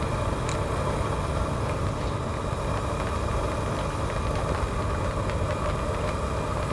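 Steady low rumbling background noise outdoors, with a few faint ticks.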